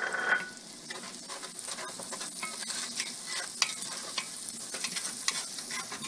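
Onions and garlic sizzling in a stockpot while a wooden spoon stirs them, with scattered light clicks and scrapes of the spoon against the pot.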